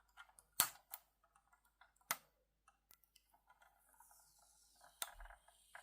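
A few sharp clicks and faint scratchy handling noises, the loudest about half a second in, from fingers working protective tape off a 1:18 diecast model car's trunk.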